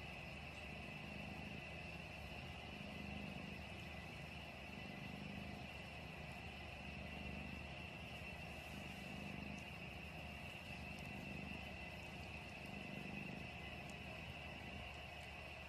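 Cat purring: a faint, steady low rumble that swells and eases with each breath, about every one and a half seconds.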